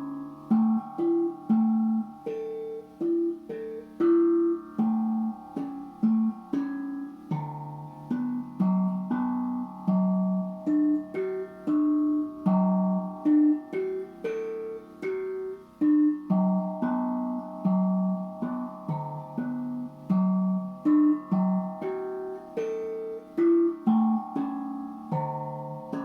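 Steel tank drum played by hand: a flowing run of single notes, each struck and then ringing out, overlapping into a sustained, bell-like melody.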